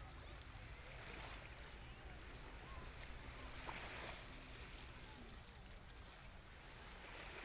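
Faint beach ambience: a steady low wind rumble with soft surf swelling and fading about three times.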